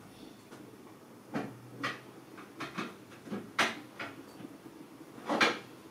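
Irregular knocks and clatters of kitchen things being handled, about eight in all and unevenly spaced, with the loudest about five and a half seconds in. A faint low hum runs underneath.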